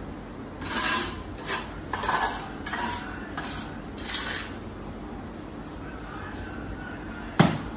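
A run of short scraping, clinking strokes of hard objects, about six in the first four and a half seconds, then a single sharp knock near the end.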